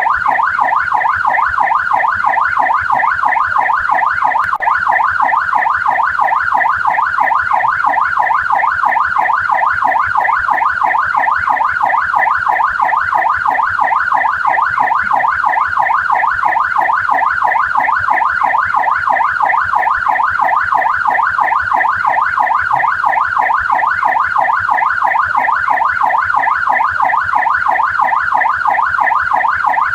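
Australian police car siren on its yelp setting: a rapid up-and-down sweep in pitch, repeating steadily without a break.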